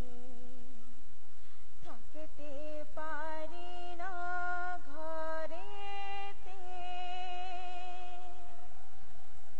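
A woman singing solo through a microphone and PA, holding long notes with vibrato and no instruments heard. Her singing stops about a second before the end, over a faint steady hum.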